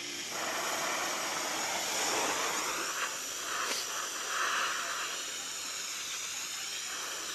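Oxy-fuel torch hissing as its gas valve is opened, then lit with a short pop about three and a half seconds in and burning with a steady rushing hiss at a low flame.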